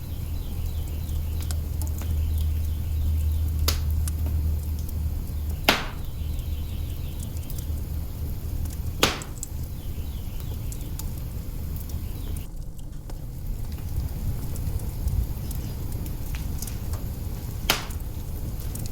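Wood fire burning in an open hearth: a steady low rumble with scattered small crackles and four sharp pops, the loudest about six and nine seconds in.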